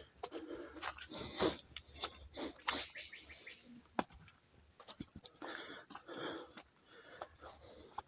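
Footsteps on a wet, rocky trail: irregular scuffs and crunches on stones, with rustling from the handheld phone. A bird gives one short, steady high whistle about three seconds in.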